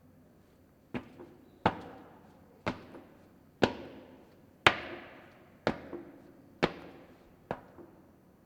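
A person jumping up and down, landing with a thud about once a second, eight landings in all, each trailing off in a short room echo.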